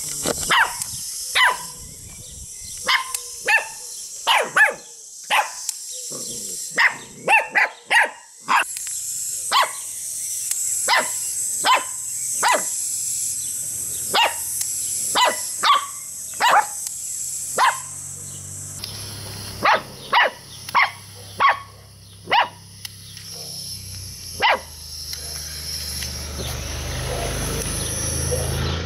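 Samoyed puppies yapping with short, high barks, dozens of them, sometimes two or three a second, stopping a few seconds before the end. A steady high hiss runs underneath.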